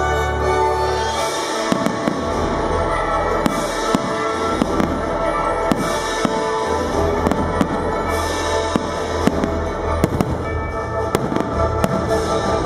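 Aerial fireworks shells bursting in a rapid series of sharp bangs, beginning about two seconds in and coming thicker near the end, over music that plays throughout.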